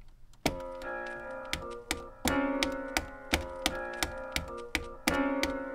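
A beat starting up on an MPC Renaissance about half a second in: a sampled chord loop re-entering every couple of seconds over a steady pattern of drum hits, about three a second.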